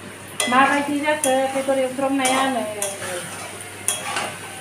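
A spatula stirring meat frying in a metal kadai: scraping, faint sizzling, and sharp clinks of the spatula against the pan near the end. A voice talks briefly over it in the first half.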